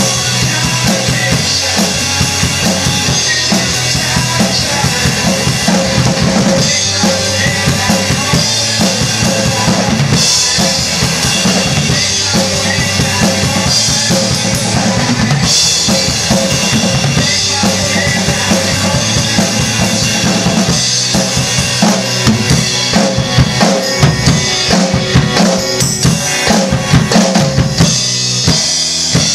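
Large rock drum kit played along to a rock song recording: a driving beat on bass drum and snare with cymbals. In the last several seconds the hits come harder and stand out more sharply.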